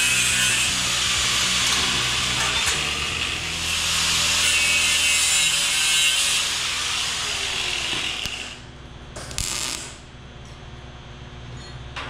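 Handheld angle grinder grinding metal in a steady, loud run, then stopping about eight seconds in; a short burst of noise follows about a second later.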